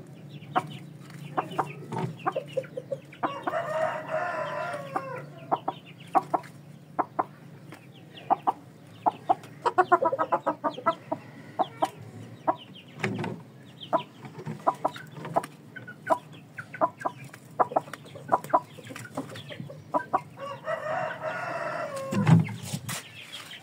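Chickens clucking while foraging, with many short sharp taps throughout as they peck at a hard dirt floor. Longer drawn-out calls come about four seconds in, around ten seconds in, and again near the end.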